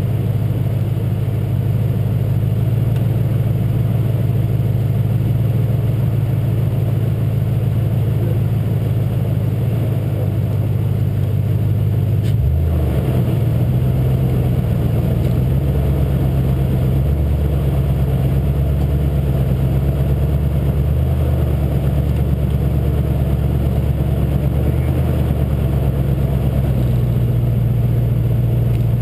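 Truck engine running at low speed with a steady low drone. About twelve seconds in the note changes and then wavers slightly, as the engine's load or speed shifts.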